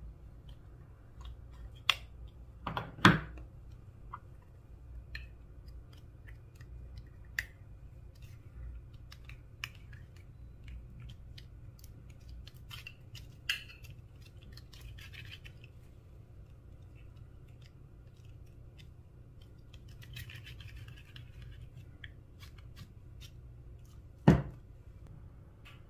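Scattered small clicks and scraping from makeup products being handled and worked for mixing into clear slime, with two louder knocks, one about three seconds in and one near the end.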